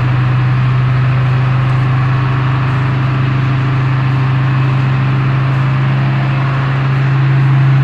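An engine idling steadily, a constant low hum that gets slightly louder near the end.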